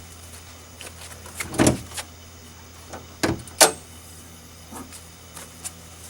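A few scattered knocks and clunks, the loudest about one and a half seconds in and a sharp one a little past the middle, over a steady low hum.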